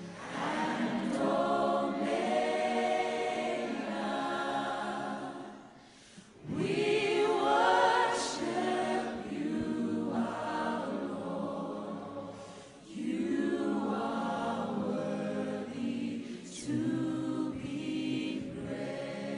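Gospel worship music: a choir singing in long, held phrases, with brief breaks about six and thirteen seconds in.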